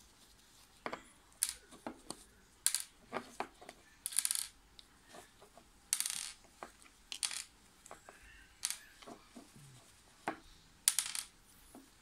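Small metal screws being worked out of the plastic housing of a Peugeot 207 gearbox selector switch and set down: irregular light clicks, clinks and short scrapes.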